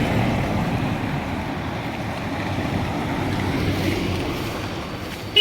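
Steady rush of road traffic: vehicles passing, with wind on the microphone.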